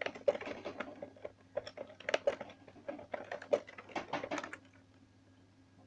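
Typing on a computer keyboard: a quick run of keystroke clicks that stops about four and a half seconds in.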